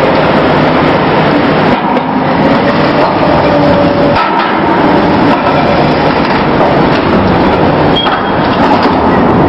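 Loud, steady machinery noise of a mobile harbour crane working as it lowers a container on its spreader. A faint whine wavers in pitch during the first few seconds.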